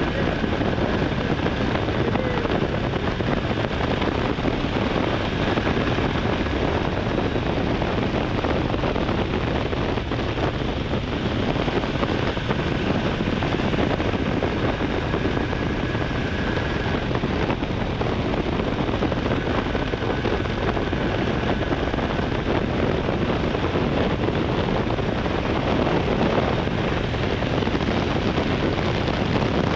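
Honda Hornet 900 motorcycle riding at a steady road speed: its inline-four engine running under steady wind rush on the camera's microphone, with a faint high tone that comes and goes.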